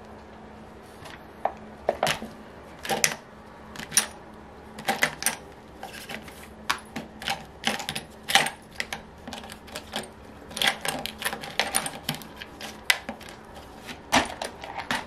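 Irregular light metallic clicks and taps, some in quick clusters, from small engine parts and tools being handled on a workbench.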